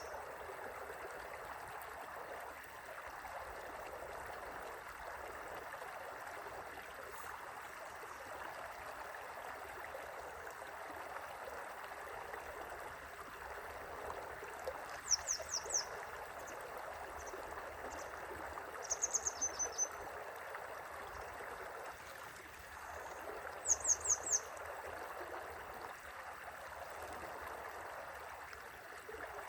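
River water flowing steadily with an even rushing sound. Three times around the middle, a bird gives a short run of quick, high chirps that stand out over the water.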